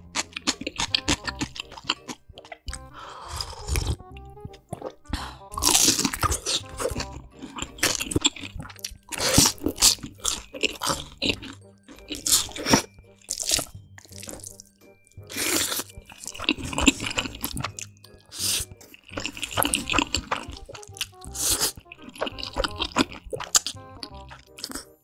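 Close-miked eating: crunchy bites and chewing of kimchi and black-bean-sauce noodles, coming in bursts every second or two, over background music.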